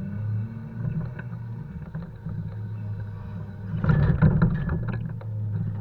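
Volvo FH 520 logging truck's diesel engine running steadily while poplar logs are unloaded. Scattered knocks run throughout, with a louder burst of knocking and clatter about four seconds in.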